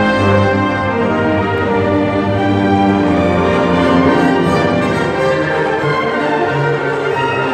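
Symphony orchestra playing classical music live, bowed strings holding long sustained notes over a low bass line at a steady level.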